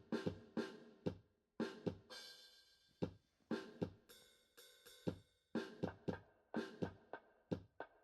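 Background music with a drum-kit beat, about two beats a second, with cymbals and pitched instruments.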